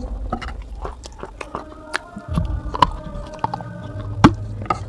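Teeth biting and crunching into a baked clay pot (gullak): a run of small, sharp cracking snaps, with one loud crack about four seconds in.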